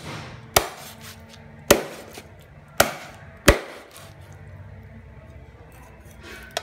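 A cleaver chopping raw chicken into pieces on a round wooden chopping board: four sharp chops, roughly a second apart, in the first four seconds.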